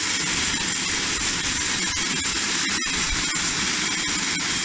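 Business jet's turbofan engines running, a loud steady roar with a high whine over it. The sound cuts out for an instant about three seconds in.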